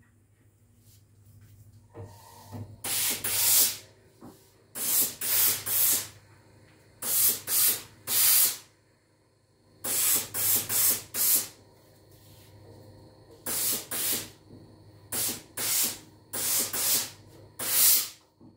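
Laurastar steam iron letting out short hissing blasts of steam, in quick runs of two to four with pauses between, over a low steady hum.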